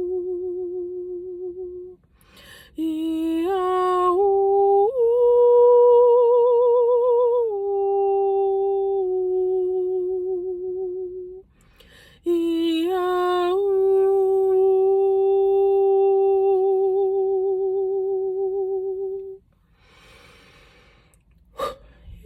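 A woman's voice humming and singing long, wordless held notes, a light-language 'soul song', each note wavering slowly, with a few short upward swoops between notes. The phrases break for audible in-breaths about two seconds in, about halfway through and near the end.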